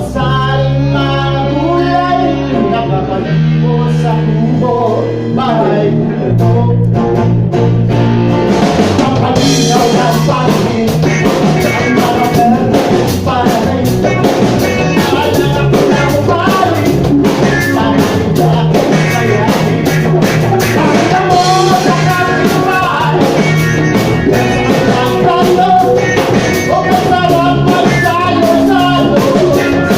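Live rock band playing with guitar; the drums and full band come in strongly about nine seconds in.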